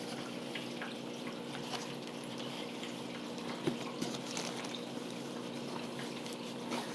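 Faint handling of the shipping box's packing and insulation, a few light clicks about four seconds in, over a steady low background hum.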